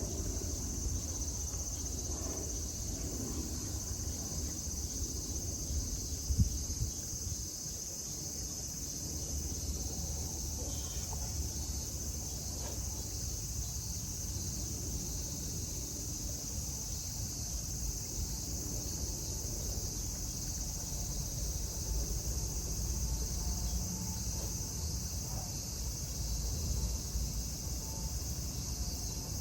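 Steady, high-pitched insect chorus droning continuously over a low outdoor rumble, with a single sharp knock about six seconds in.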